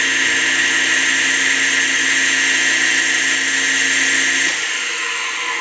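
Rebuilt 2.5 horsepower, 230 volt two-speed electric motor running free with a steady hum and whine; its cheap replacement front bearing doesn't sound too good. About four and a half seconds in the power is cut and the motor begins winding down.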